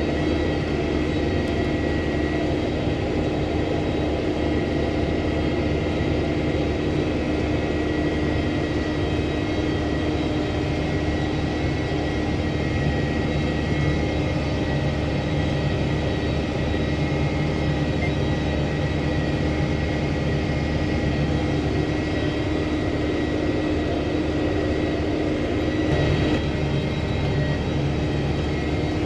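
Engine of a 2005 John Deere sprayer running steadily, with a constant low drone and a steady high whine over it.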